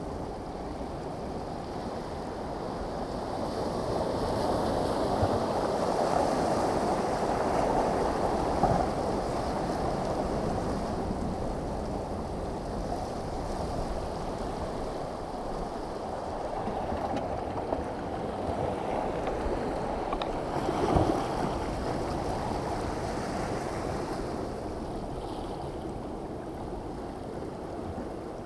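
Muffled, steady rush of ocean waves and wind heard through a GoPro's microphone, swelling a few seconds in and easing off, with a couple of brief knocks.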